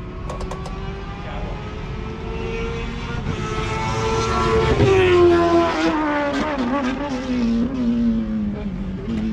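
A race car's engine out on the circuit, its pitch climbing slowly, loudest about five seconds in, then falling away to a lower pitch with a few wavers.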